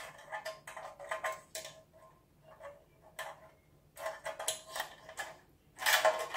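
Bent coat-hanger wire handles clicking and scraping against a metal loaf pan as they are fitted, in irregular bunches of small metallic clicks with a short ring. The loudest clatter comes near the end, as the pan is picked up with the handles on.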